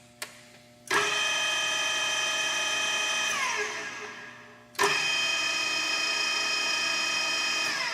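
Tone Fan TPR-1100 radial arm drill's spindle motor and gearbox switched on, running with a steady whine, then switched off and winding down. It starts again about five seconds in and winds down once more near the end.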